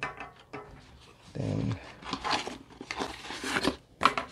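Cardboard box and paper packaging handled by hands: irregular rustling, scraping and crinkling strokes, with a brief low hum about a second and a half in.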